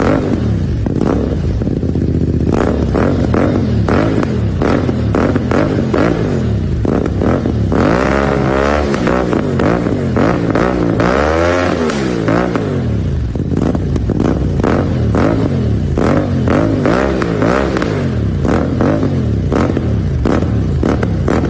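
CFMOTO 450SR motorcycle's parallel-twin engine and exhaust running and being revved, the pitch rising and falling repeatedly, with two long rev sweeps up and back down in the middle.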